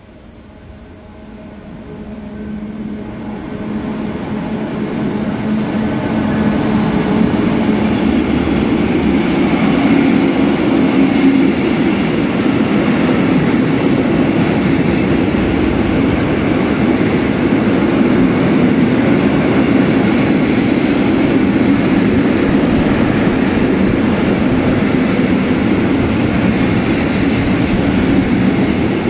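Electric freight train approaching and passing close by: an SNCF BB 26000 locomotive hauling tank and flat wagons. The sound grows louder over the first six seconds or so, then stays steady as the wagons' wheels run past on the rails.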